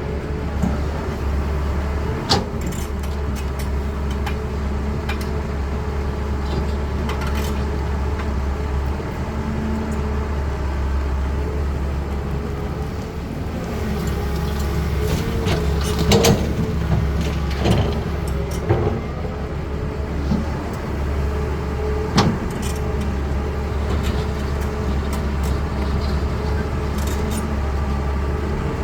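Caterpillar 320D hydraulic excavator's diesel engine running steadily under load, with a few sharp metallic clanks and knocks from the digging and loading: one about two seconds in, several in a cluster past the middle, and another a few seconds later.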